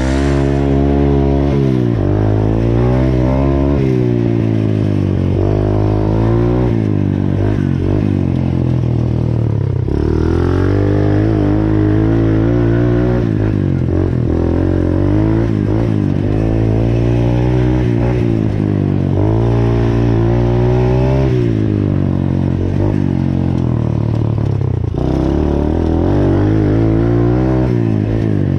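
Dirt bike engine running under way, its pitch climbing and dropping again and again as the rider accelerates and eases off.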